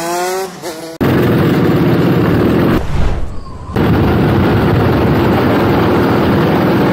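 Go-kart engine running hard, recorded by an onboard camera with heavy wind buffeting on the microphone. It cuts in suddenly about a second in after a short rising tone, dips briefly around three seconds in, then comes back just as loud.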